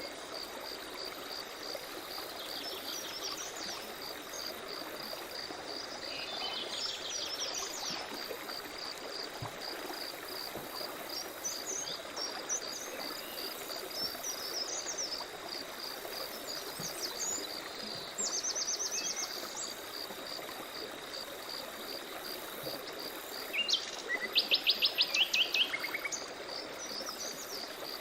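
Songbirds calling over a steadily running forest stream: scattered chirps and short trills, the loudest a fast trill of rapid repeated notes near the end. A high insect chirp pulses steadily about twice a second underneath.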